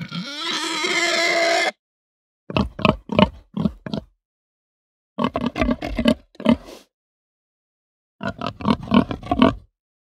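Domestic pig: a long, pitched squeal of about a second and a half, then three bursts of short grunts and oinks, with silent gaps between them.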